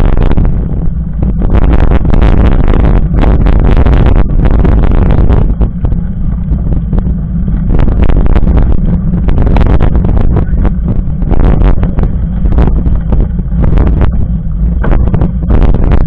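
Loud wind buffeting and road rumble on a camera mounted on a mountain bike's handlebars while riding a gravel road, with frequent irregular knocks and rattles as the tyre runs over the bumps.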